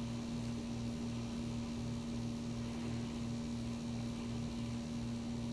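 Steady electrical hum, one fixed tone with a lower throb pulsing about twice a second.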